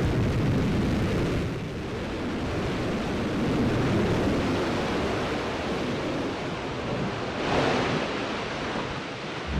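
New Shepard booster's BE-3 hydrogen–oxygen rocket engine firing through the final seconds of its vertical landing, a steady noisy rumble that eases after about a second and a half, with a brief swell near the end.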